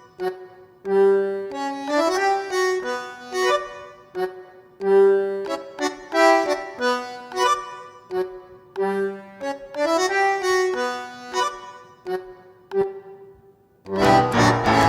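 Background music: a simple melody of short, separate notes, with a fuller, louder passage coming in about fourteen seconds in.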